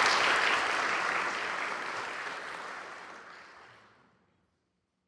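Audience applauding, fading out over about four seconds.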